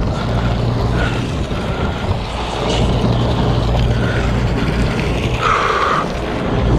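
Sportfishing boat's engine running with a steady low hum, under wind and water noise on the microphone. A brief hiss comes about five and a half seconds in.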